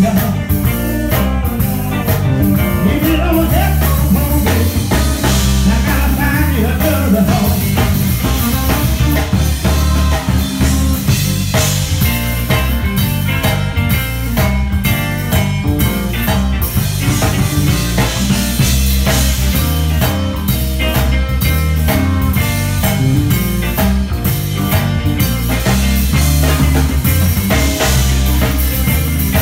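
Live band playing an instrumental groove: drum kit with cymbals over a strong, steady bass line, with electric guitar.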